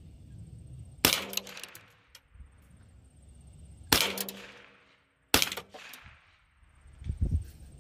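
Three single shots from a GSG-16 .22 LR semi-automatic rifle, about a second in, about four seconds in and a second and a half after that. Each is a sharp crack followed by a short fading echo. A low thump comes near the end.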